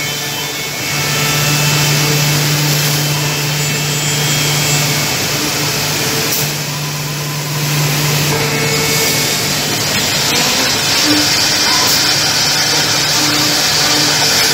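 Multi-spindle CNC mortising machine running: a steady machine hum under a whirring hiss from its router spindles, which grows brighter about ten seconds in.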